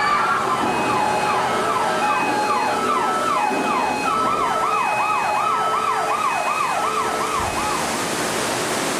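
Several emergency sirens sound over one another, with a steady rush of floodwater beneath them. About four seconds in, one siren switches to a fast repeating yelp, and the sirens fade near the end.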